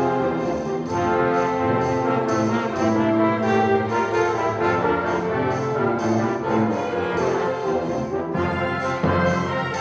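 Full symphony orchestra playing live, brass to the fore over sustained, shifting chords, with a fresh entry near the end.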